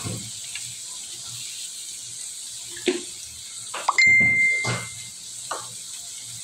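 Metal utensils clinking against a wok: a couple of light clicks, then about four seconds in a sharp ding that rings for about a second and fades.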